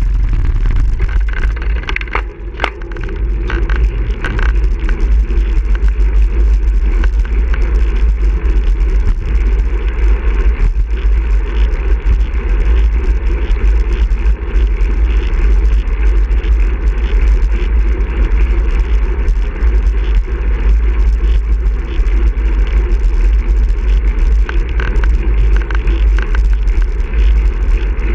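Wind rumbling on the microphone of a moving bicycle, with tyre noise on asphalt underneath. About two seconds in, a short rattle of clicks as the wheels cross a metal cattle grid.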